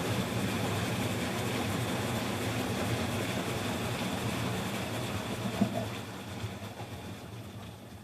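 Panasonic NA-FA10K1 top-loading washing machine running with a steady low rumble and hum. There is one short knock a bit past halfway, and the sound fades away over the last two seconds.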